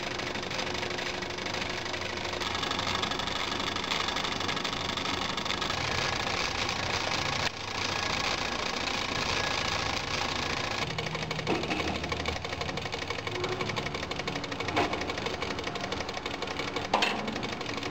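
Wilesco model steam tractor's small steam engine running fast on steam, with a rapid, steady mechanical clatter as it belt-drives a 12-volt DC motor used as a generator. A brief knock near the end.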